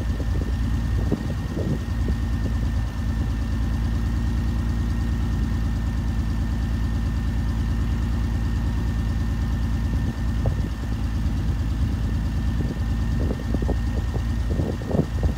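BMW E46 320i's straight-six engine idling steadily through a straight-piped exhaust, with a few short uneven sputters, mostly near the end.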